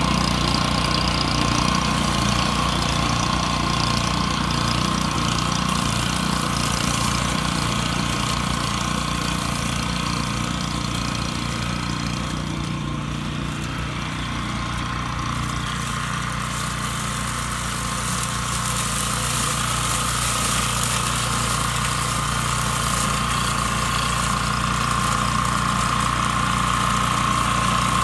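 Small engine of a grass-cutting machine running steadily, with a constant high-pitched whine over it; it eases off a little about halfway through, then comes back up.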